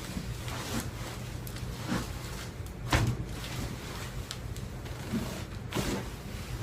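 Several short knocks and thumps from a chiropractic adjustment of a patient on a treatment table, the loudest about three seconds in, over a steady low hum.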